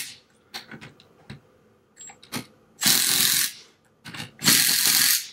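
Cordless impact driver with an 11/16 socket running in two short bursts, about three and four and a half seconds in, the second one longer, as it snugs down the head bolts on a diaphragm pump's aluminium block. Light clicks and knocks come between the bursts.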